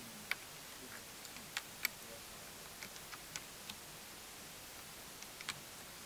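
Light, scattered clicks and ticks from a replacement Wi-Fi card and the small parts around its slot being handled and fitted inside a Panasonic Toughbook CF-31 laptop, about a dozen in all at irregular intervals.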